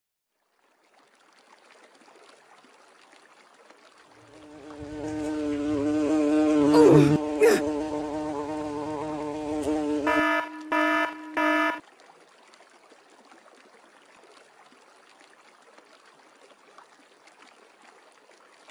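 Buzzing bee sound effect. A loud buzz swells up a few seconds in, sweeps in pitch as if flying past, then breaks into three short buzzes and stops, leaving a faint hiss.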